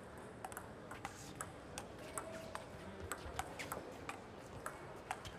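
Table tennis ball in a doubles rally, clicking back and forth between the bats and a Tibhar Smash 28 table: a quick, even run of sharp clicks, about three a second.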